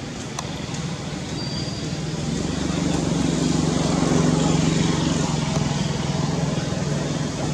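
Steady low engine rumble, growing louder about two seconds in.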